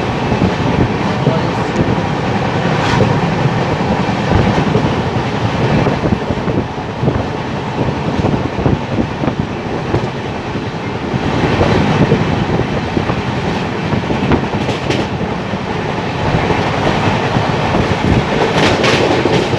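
Deccan Queen Express passenger train running on the rails, heard from aboard: a steady rumble of wheels and coaches, with a few sharp clacks of the wheels over rail joints.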